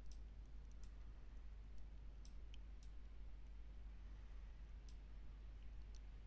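Faint computer mouse clicks, about seven scattered single clicks, over a low steady hum.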